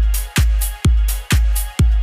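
Background electronic dance music with a heavy kick drum on every beat, about two beats a second, and a bright cymbal hiss between the beats.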